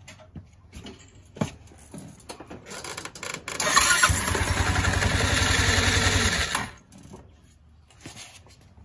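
Honda Helix scooter's 250 cc single-cylinder engine started with its belt drive open: a few light clicks, then the engine catches about four seconds in, runs steadily for about three seconds and is shut off. The short run spins the front variator and drive belt so the belt climbs back up into place after the variator has been refitted.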